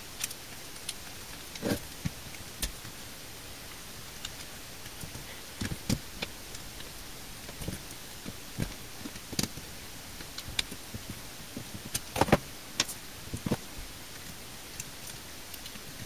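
Scattered light clicks and knocks at irregular intervals as a plastic-and-rubber Bluetooth speaker housing is handled and small screws are taken out of its underside, with a louder cluster of knocks about twelve seconds in.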